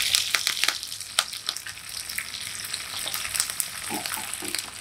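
Dried red chillies, curry leaves and whole spices sizzling in hot oil in a small pan as a tadka (baghar), with scattered pops and crackles. The sizzle is loudest at first and settles to a steadier fry within about a second.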